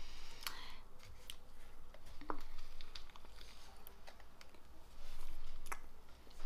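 Biting into and chewing a cream-filled choux pastry (a religieuse): quiet mouth and chewing sounds with scattered small clicks, and a soft, slightly louder stretch about five seconds in.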